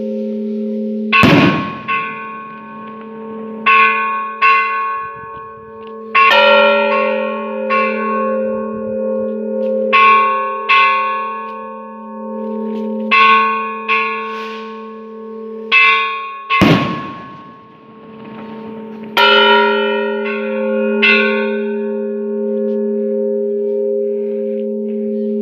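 Church bells rung by hand in a repique: several bells of different pitches struck in quick pairs and short runs at an uneven rhythm, their tones ringing on and overlapping, over a steady low hum from the largest bell. The heaviest strokes fall about a second in and again about two-thirds through.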